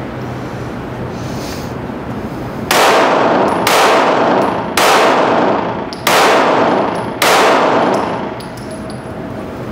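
Five 9mm Glock pistol shots, fired roughly one a second, each ringing out with a long echoing tail in an indoor shooting range.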